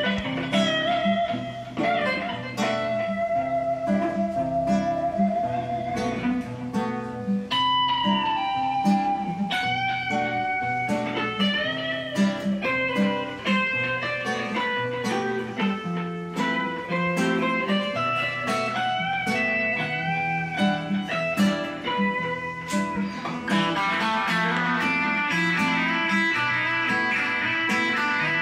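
Live instrumental bossa passage: a nylon-string acoustic guitar plays a steady, rhythmic chord pattern under a sustained lead melody with vibrato and sliding bends, with electric guitar in the mix. Late on, the upper part turns into busier, quicker high notes.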